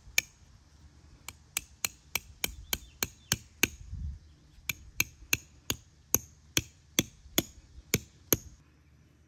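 A hatchet's back being used as a hammer to drive a tent stake into the ground: two runs of about ten quick, sharp strikes each, roughly three a second, with a brief pause about four seconds in. Each strike has a short ringing tone.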